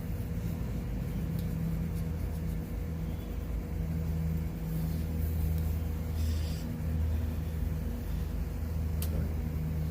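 Steady low mechanical hum, like a motor or engine running, with a faint steady whine above it and a couple of faint clicks near the end.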